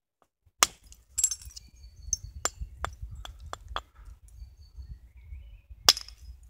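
Flint nodule struck with an antler billet, soft-hammer knapping to thin a handaxe. A quick run of sharp clicks, some with a brief glassy ring, detaches small flakes over the first few seconds. The loudest single strike comes near the end.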